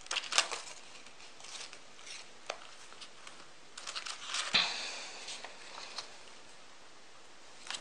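Paper pages of a ring-bound planner turned by hand: a scattering of short rustles and flicks, with a longer rustle about four and a half seconds in.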